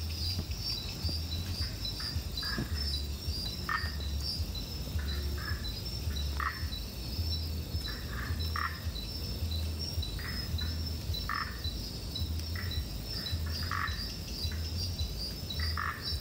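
Night chorus of frogs and insects: short frog calls repeating about once a second, often in pairs, over a steady, fast-pulsing high insect chirping, with a low hum underneath.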